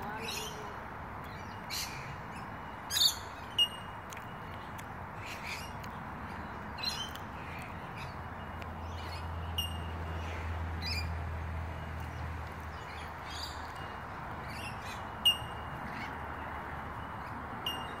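A flock of rainbow lorikeets feeding, giving short, shrill screeching calls at irregular intervals, the loudest about three seconds in and again near fifteen seconds.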